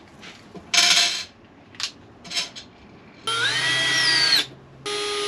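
Cordless drill driver running screws back in: a motor whine of about a second whose pitch climbs toward the end, then a second run starting near the end. A short rattle of handling comes about a second in.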